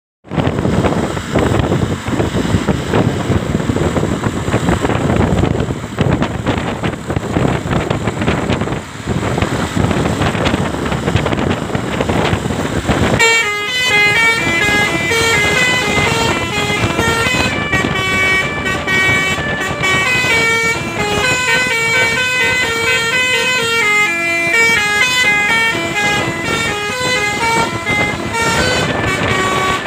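Loud steady noise for about the first half. From about halfway in, a bus's telolet horn plays a fast tune of several notes at once, stepping up and down in pitch.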